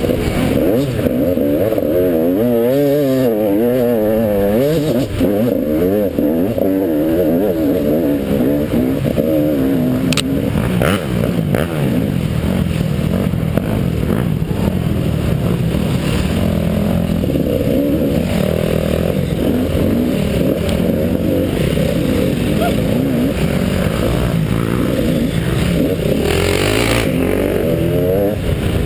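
Dirt bike engine heard close from the rider's helmet, revving up and easing off again and again as it rides a rough woodland trail, its pitch rising and falling constantly. A sharp knock about ten seconds in.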